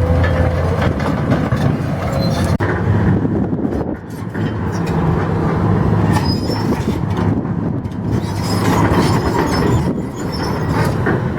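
Heavy demolition machinery running: a steady low engine drone with short high squeals.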